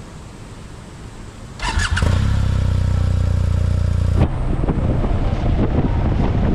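BMW R1250RT's boxer twin engine starting about a second and a half in and settling into a steady idle. A couple of seconds later the sound changes abruptly to a rougher engine sound with wind buffeting the microphone.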